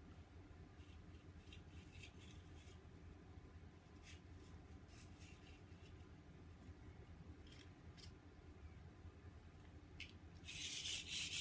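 Faint handling of small engine parts with a few light clicks, then near the end a rapid scratchy rubbing starts on the parts.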